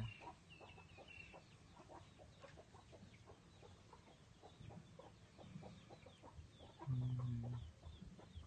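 Young chickens clucking softly, with faint high peeps and many light ticks throughout. Near the end, a low steady hum sounds for under a second.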